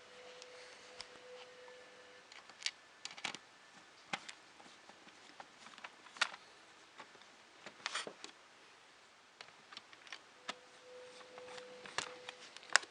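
Irregular small clicks and taps of a screwdriver working screws into the ZX Spectrum+'s plastic case and parts being handled, a few sharper knocks among them.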